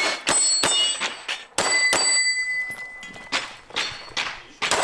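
A rapid string of pistol shots, about eight or nine, several of them followed by the ringing clang of hit steel plate targets.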